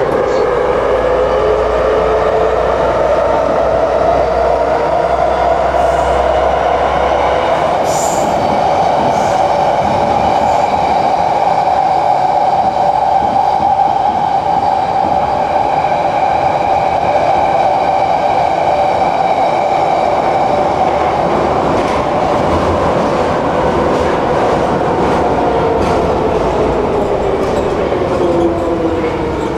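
Warsaw Metro train heard from inside the car running through the tunnel: the traction motors' whine rises in pitch as the train picks up speed, holds steady, then falls again near the end as it slows, over a steady rumble of wheels on rails. There are a few clicks and rattles a few seconds in.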